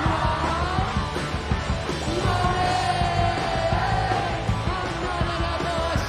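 Punk rock song with a yelled, sung vocal over a full band; the singer holds one long note around the middle.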